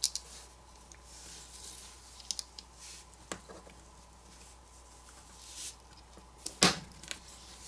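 Faint, scattered clicks and taps of small parts being handled and pressed into a smartphone's frame as the headphone jack module is fitted into the Samsung Galaxy S10+, with soft rustling between. The sharpest click comes about two-thirds of the way through.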